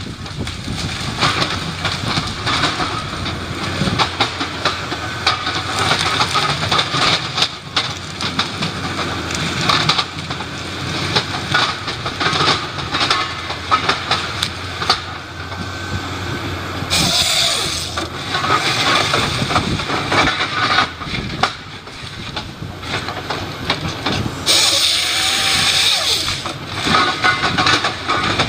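Heavy wood-processing machinery running, with a steady clatter of knocks and cracks over a low hum, and two short bursts of hiss, one about two-thirds of the way through and one near the end.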